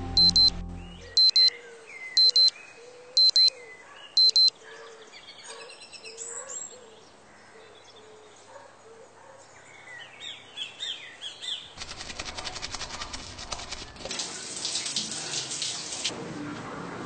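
Electronic alarm clock beeping in high double beeps, five times about a second apart, while birds chirp and twitter. A dense crackling, hissing noise follows in the last few seconds.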